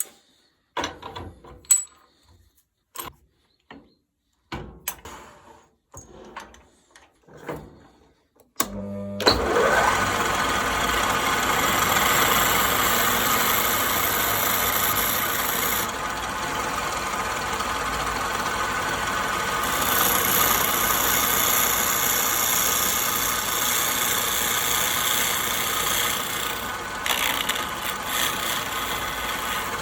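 A few light knocks and taps of tools and wood being handled. About nine seconds in, an electric power tool starts with a short rising whine and runs steadily to the end, its sound dipping a little for a few seconds in the middle.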